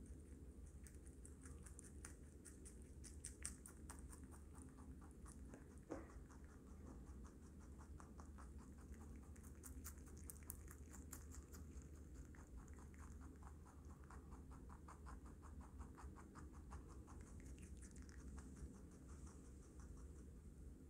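Baby rabbit chewing lettuce and carrot, a faint run of rapid, fine crunching clicks close to the microphone, over a low steady hum.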